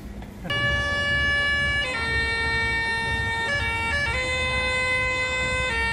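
A busker playing a slow melody in long, steady held notes, starting about half a second in. Each note holds for a second or two before stepping to the next, with a few quick short notes in the middle, over low street rumble.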